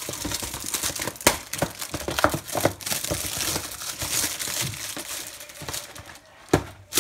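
Tea bag packaging being worked and torn open by hand: continuous crinkling and crackling with many small snaps, and sharper snaps about a second in and near the end.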